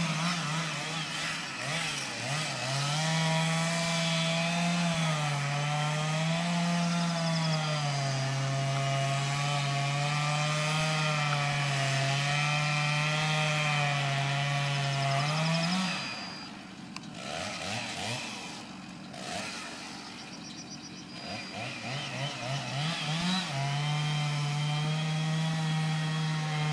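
Chainsaw running at high revs, its pitch sagging and wavering as it works under load in the wood. About two-thirds of the way through it drops back and blips unevenly, then it is revved up again to a steady high pitch near the end.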